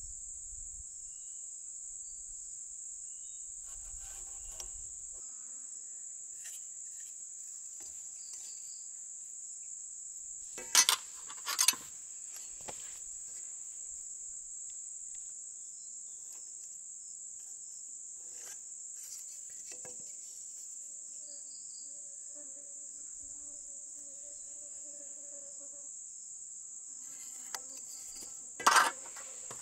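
Steady high-pitched chorus of insects. It is broken twice by brief loud knocks, a quick pair about eleven seconds in and another near the end.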